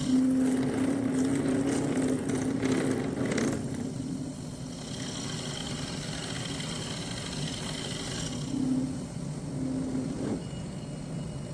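A power tool's electric motor running with a steady hum, loudest in the first few seconds and again near the end, where it cuts off suddenly.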